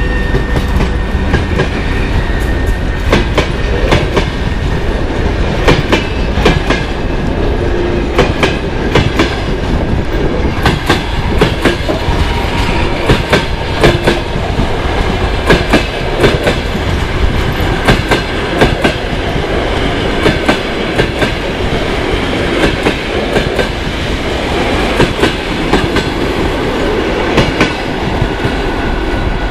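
Russian passenger coaches of a locomotive-hauled train rolling past at close range, their wheels clattering over rail joints with many sharp, irregular clicks over a steady rumble.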